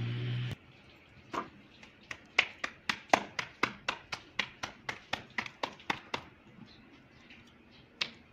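Roti dough being slapped flat between the palms: a quick run of sharp pats, about four a second, lasting about five seconds, then one more pat near the end. Before the pats, a steady hum cuts off abruptly about half a second in.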